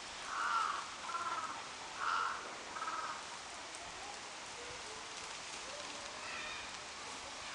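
A bird calling four short times in two pairs, then once more faintly about six seconds in.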